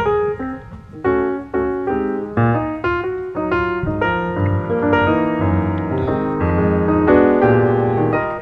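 Background piano music: separate struck notes over the first couple of seconds, then fuller chords held through the latter half.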